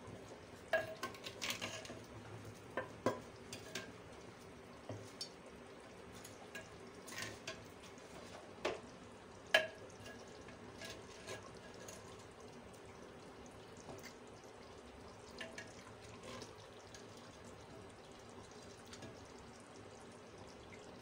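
Steel ladle stirring and scooping thick meat curry in a clay pot, with liquid sloshing and scattered clicks and knocks of metal on earthenware, the loudest near ten seconds in. A faint steady hum underneath.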